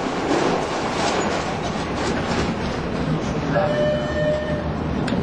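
The 1883 Couillet steam locomotive FNM 200.05 running, heard from its footplate as a steady rushing rattle of the moving engine, with a short steady high tone about three and a half seconds in.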